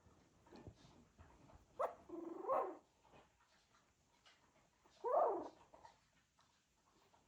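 Cocker spaniel puppies making two short whining cries with bending pitch, one about two seconds in and a louder one about five seconds in, with faint scuffling between.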